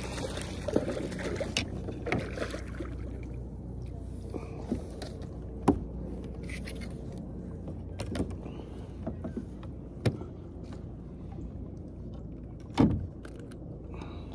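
Kayak being paddled: sharp knocks of the paddle and gear against the kayak hull every second or few seconds, the loudest near the end, over a steady low rumble.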